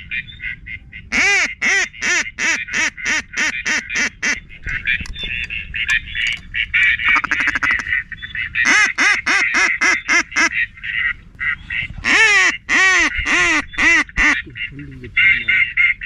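Ducks quacking in runs of rapid quacks, about three a second, three times over, against a steady higher-pitched chatter.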